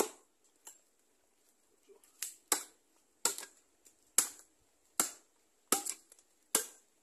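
Machete blade chopping into a rotting log, about eight sharp, irregular strikes roughly a second apart, as the trunk is cut open to reach a wild bees' nest.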